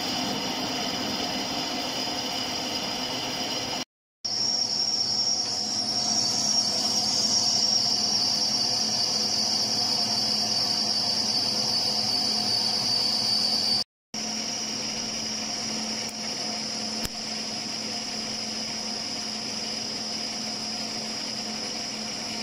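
Metal lathe turning a steel gear blank: the cutting tool makes a steady high-pitched whine over the lathe's lower running hum. The sound cuts off briefly twice.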